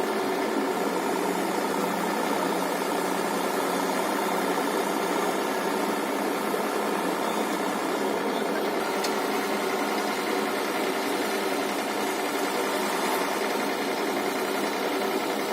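Diesel engine of a heavy construction machine, such as an excavator or dump truck, running steadily at an even pace.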